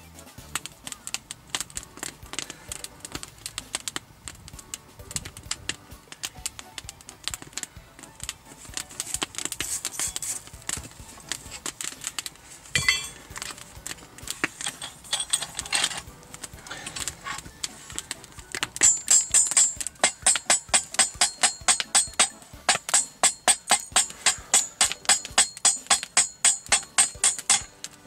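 Background music; about two-thirds of the way through, a hand hammer starts striking a hot, twisted damascus steel billet in a fast, even rhythm of about three ringing metal blows a second.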